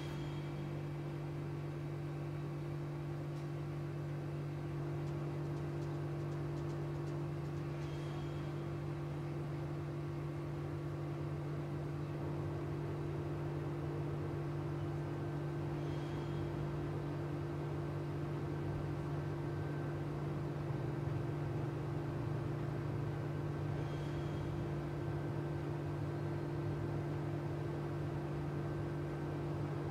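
A steady low electrical hum, with a faint short tick about every eight seconds.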